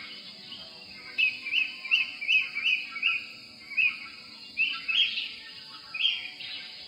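Bird calls: a quick run of short, evenly spaced chirps, about three a second, followed by a few more scattered calls.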